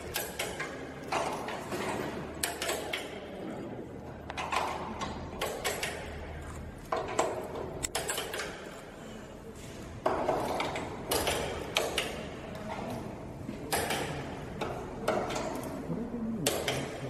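Wrenches clicking and clinking on bolts and the steel casing of a train equipment unit, over indistinct voices.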